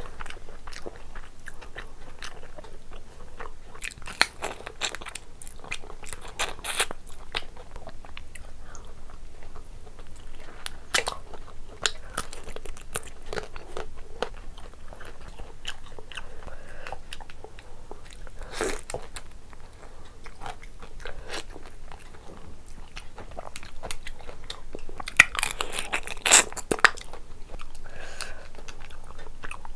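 Eating sounds of a person chewing prawn curry and rice eaten by hand, with scattered crunching bites and a louder cluster of crunches a few seconds before the end.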